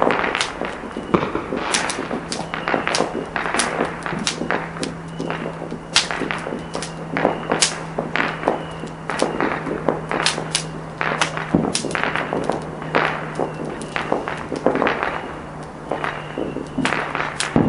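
Garden fireworks crackling and popping: a dense, irregular run of sharp cracks, several a second.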